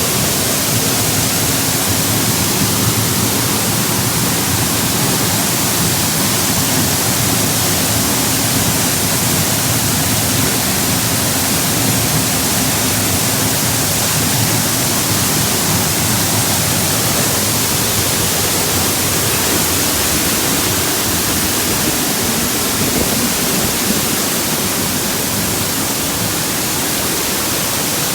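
Dry Falls, an 80-foot waterfall on the Cullasaja River, pouring down: a loud, steady rush of falling water that never lets up.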